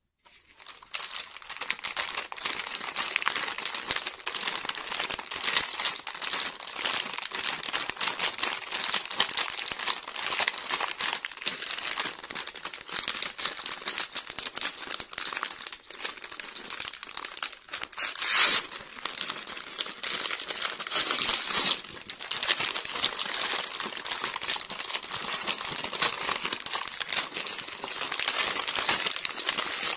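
Plastic snack wrapper crinkling and crackling continuously as hands squeeze and pull open a pack of chocolate-coated marshmallow biscuits, with one brief louder burst a little past the middle.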